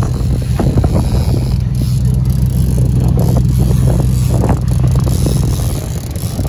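A motorboat engine running with a steady low drone, with brief irregular noises over it.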